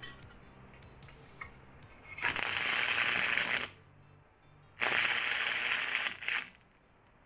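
Stick welding arc crackling and sizzling in two bursts of about a second and a half each, each starting and stopping abruptly as the arc is struck and broken by a first-time welder.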